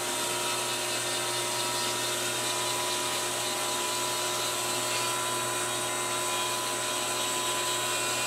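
Foot-pedal-controlled rotary tool fitted with a jewelry burr, running with a steady high whine at constant speed while it grinds a moulded seam line off a small plastic model part.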